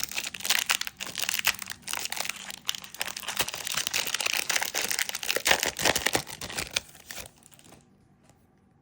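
A trading card pack's wrapper being torn open and crinkled. The crackling runs for about seven and a half seconds, then stops.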